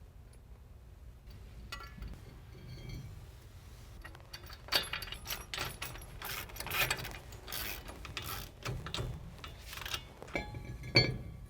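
Metal clicking and clinking of hand tools, bolts and thin steel shims being handled at a brake caliper mounting bracket, mostly from about four seconds in.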